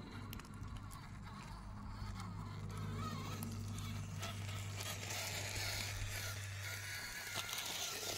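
Small electric motors and gearboxes of 1/18-scale RC rock crawlers running as the trucks crawl over rocks, their pitch wavering with throttle, with tyres crunching and scraping on gravel and stone. The gritty crunching grows stronger from about five seconds in, as a truck comes close.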